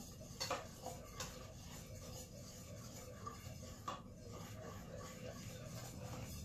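A spoon stirring pancake batter in a stainless steel mixing bowl, scraping against the sides with a few sharp clinks.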